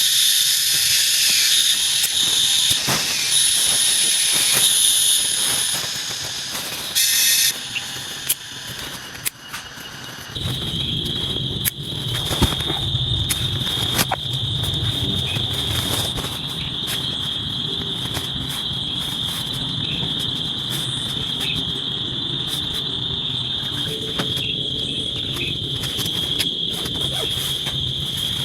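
Jungle insects calling: a shrill chorus of several high, steady insect songs with a hiss beneath. About ten seconds in it changes to one steady high trill over a low rumble.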